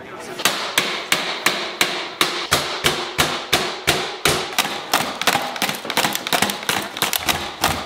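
A VR headset and a laptop being bashed together, with the laptop lid slammed down on the headset again and again: hard plastic knocks, about three to four a second, without a break.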